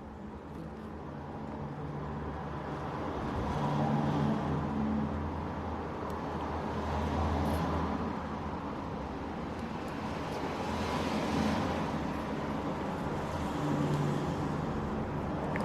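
Low rumble of road traffic, swelling and fading about four times as vehicles pass.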